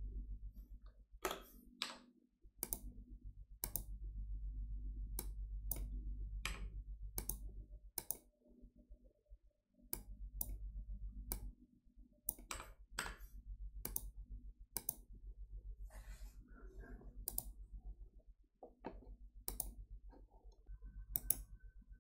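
Scattered single clicks of a computer mouse and keyboard, roughly one a second and unevenly spaced, over a low hum that drops out now and then.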